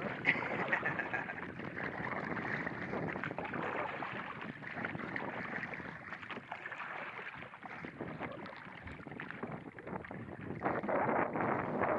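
Water lapping and splashing against the hull of a small boat under way, with wind on the microphone.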